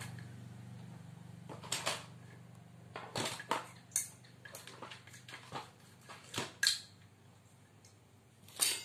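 Small metal parts and tools clinking and tapping as they are handled, in about a dozen short, irregular knocks.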